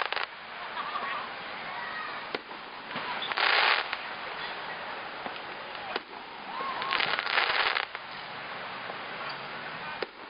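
Aerial fireworks going off: a steady crackle with occasional sharp bangs, and two loud dense bursts of crackling about a third and about two thirds of the way through.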